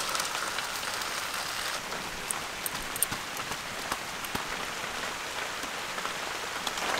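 Hot water and par-boiled basmati rice poured from a metal pot into a woven bamboo basket, splashing for about the first two seconds, then a steady hiss of water draining through the rice, with a few faint clicks.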